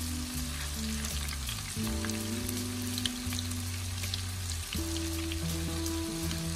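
Tofu cubes shallow-frying in hot oil in a nonstick pan: a steady sizzle dotted with many small, sharp oil pops.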